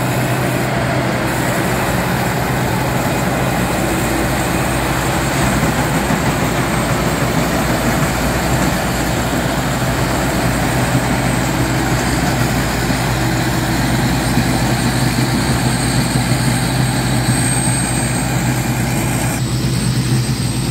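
Tracked rice combine harvester running steadily while it cuts and threshes, a constant engine drone under a dense machinery noise. Near the end the sound changes abruptly and the high hiss drops away.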